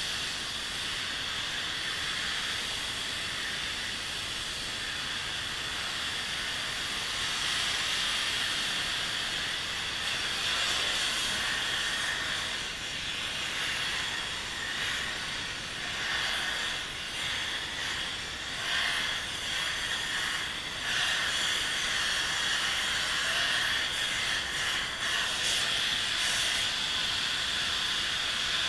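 Steady hiss of a gas heating torch, heating a seized hydraulic cylinder part to free it; the hiss wavers in level in the second half.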